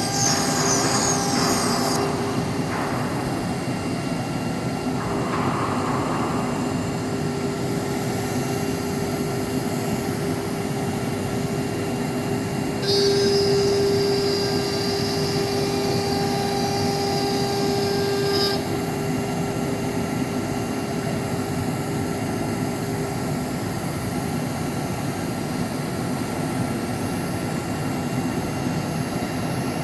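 Four-axis ATC CNC router running steadily with a constant spindle tone. A louder, higher whine joins briefly at the start and again for about five seconds in the middle.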